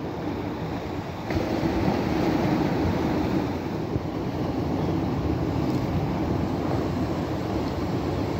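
Steady low rumbling noise of wind and sea surf, stepping up in loudness a little over a second in.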